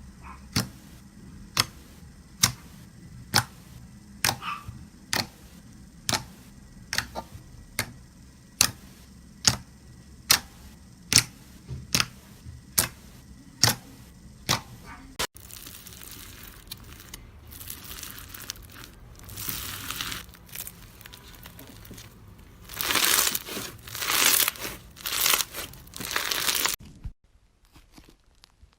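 Slime being handled: sharp pops come evenly, roughly one every 0.7 seconds, for about fifteen seconds. Then it changes to louder crinkling, crackling bursts as the slime is squeezed and stretched, and these stop abruptly near the end.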